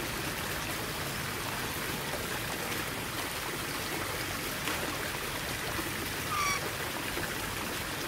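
A steady rush of background noise like running water, with one short call from a parrot, slightly falling in pitch, about six and a half seconds in.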